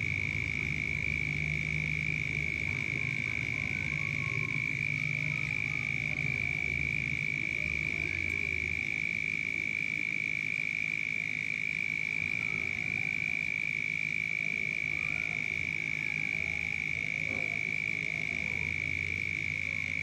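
Night frog chorus: low croaking pulses, over a steady high-pitched drone, with faint short chirps scattered through.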